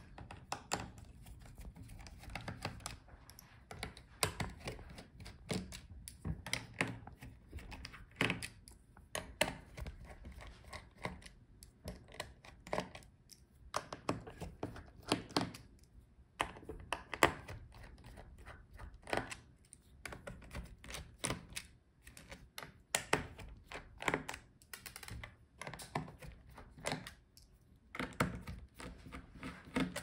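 Small precision screwdriver backing out the bottom-case screws of an Asus ROG Zephyrus G14 laptop: a run of irregular small clicks and taps as the bit seats, turns and knocks against the bottom plate.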